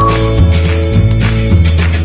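Background music with a bass line and chords.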